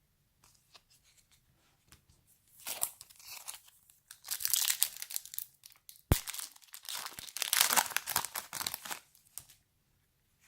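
A Garbage Pail Kids trading-card pack being torn open by hand, its wrapper tearing and crinkling. After a few faint taps, the rustling comes in two loud stretches with a sharp click between them about six seconds in.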